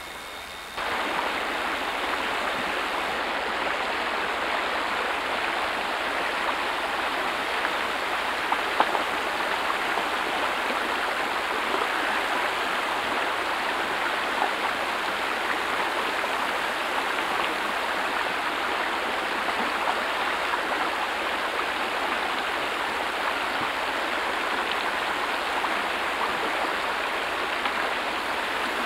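A mountain creek rushing steadily over a rocky bed. It comes in suddenly about a second in, with a couple of faint clicks above it.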